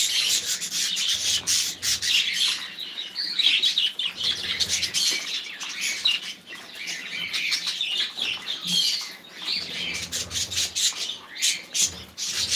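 Small cage birds chirping and twittering rapidly, a dense, continuous chatter of short high calls.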